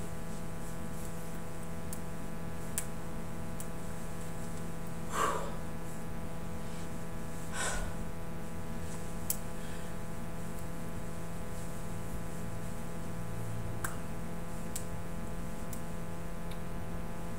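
Steady low electrical hum and hiss of a small room, with no music, broken by two short breaths about five and seven and a half seconds in and a few faint clicks.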